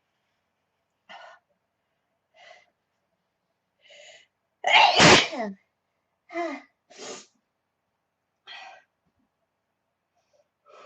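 A woman's allergy sneeze: three short, quiet breaths build up to one loud sneeze about five seconds in, followed by a few short breaths.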